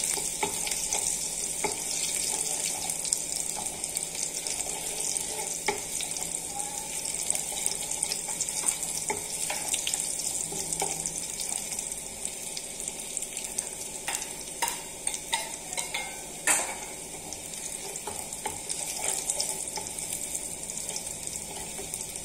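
Chopped garlic frying in hot mustard oil with cumin seeds in a kadhai, browning for a tadka: a steady sizzling hiss with small crackles as a wooden spoon stirs it. A few louder knocks of the spoon against the pan come about two-thirds of the way through.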